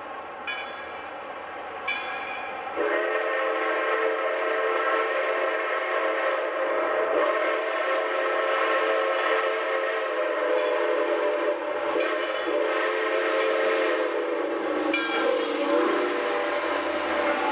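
Southern Railway 630's chime steam whistle, on a 2-8-0 Consolidation steam locomotive, blowing one long chord of several tones. It starts about three seconds in and is held to the end, with a couple of brief dips along the way, over the sound of the train starting to move.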